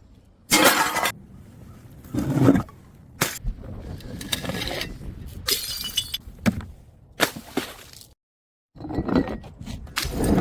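Glass bottles smashing one after another: about half a dozen separate crashes, each followed by brief tinkling of shards, with a moment of dead silence about eight seconds in.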